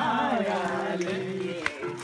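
Several people singing a song together, with one sharp click or clap near the end.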